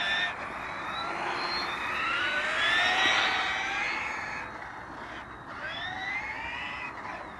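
Several radio-controlled model cars, among them a brushed electric HPI Blitz, driving at speed. Their motors and gears whine over one another, each whine rising and falling in pitch as the cars speed up and slow down, loudest about three seconds in.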